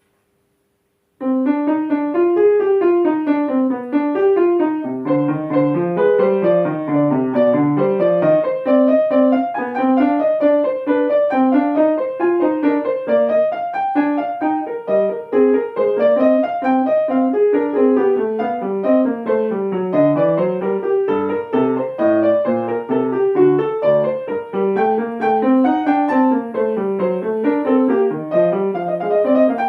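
Solo piano starting about a second in and playing continuous running figures, with fast notes rising and falling in both the upper and lower parts.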